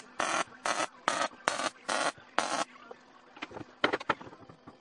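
Wire-feed welder laying about six short tack welds in quick succession, fixing expanded metal mesh to a steel frame. A few light clicks of metal being handled follow near the end.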